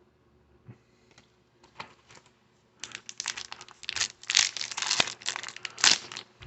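Crinkling and tearing of a trading-card pack's foil wrapper, a few light rustles at first, then a dense run of crackles for about three seconds.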